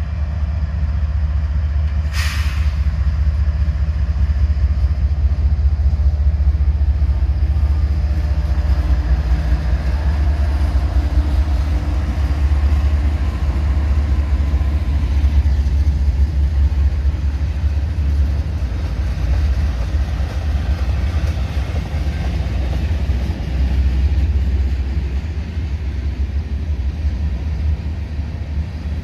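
Union Pacific GE diesel-electric locomotives of a freight train passing close by with a steady deep engine rumble, then freight cars rolling past on the rails. There is a short hiss about two seconds in.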